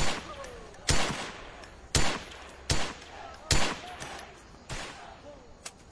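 A string of rifle shots on a shooting range, single shots about a second apart. Five loud ones come in the first four seconds, then a few fainter ones follow.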